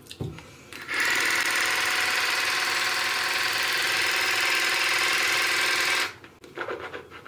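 Cordless water flosser running, its pump giving a steady motor whir with water hiss as it sprays into the mouth, starting about a second in and cutting off suddenly after about five seconds.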